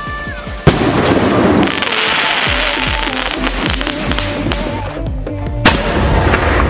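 Firework sound effects over background music: a sharp bang under a second in, a stretch of hissing crackle, and a second bang near the end as a burst goes off.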